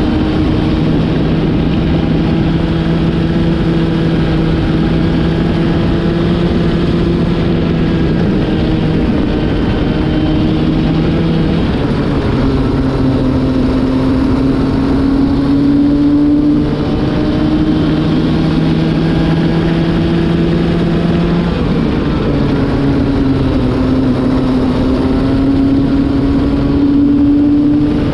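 Racing kart engine running at speed on track, heard onboard with wind noise; its note drops in pitch twice, about twelve and twenty-one seconds in, and climbs slowly again after each drop. The engine is new and being run in.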